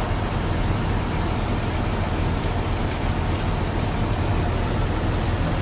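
Mitsubishi Fuso city bus's diesel engine running steadily, a low hum with cabin noise, heard from inside the passenger cabin.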